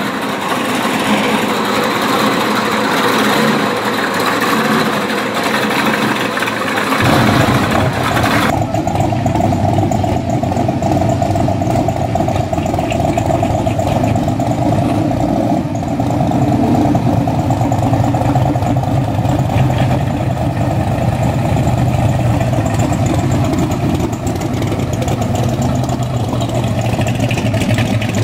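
Supercharged pro street muscle-car engines idling and revving lightly as the cars drive slowly past, with abrupt changes in sound about 7 and 8.5 seconds in as one car gives way to the next.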